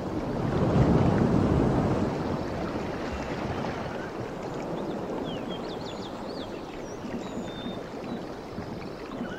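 Wind and water rushing, as heard from a boat out on the sea, loudest about a second in and then steady. Faint high chirps come in over it from about halfway.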